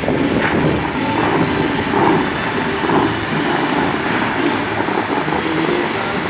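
Steady rush of the Bellagio fountain's water jets shooting up and the spray pouring back down onto the lake.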